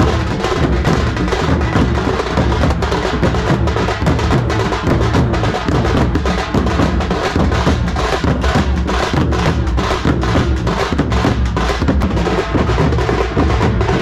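A Bellary-style tasha drum band: many drummers beating large barrel drums with sticks together in a loud, dense, driving rhythm that never breaks.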